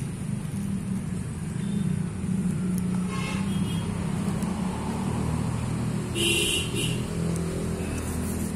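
Steady low rumble of motor-vehicle traffic or a running engine, with a short, sharper high-pitched sound about six seconds in.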